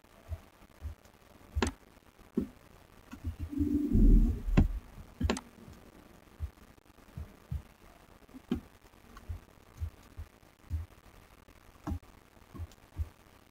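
Scattered soft low thumps and a few sharp clicks, with a louder rumbling bump about four seconds in: handling noise at a computer desk as a mouse scrolls the page.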